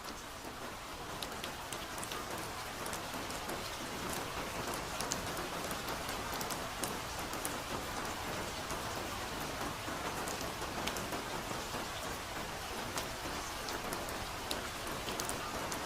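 Soft, steady rain falling, with scattered single drops ticking through the even patter; it builds slightly over the first few seconds, then holds level.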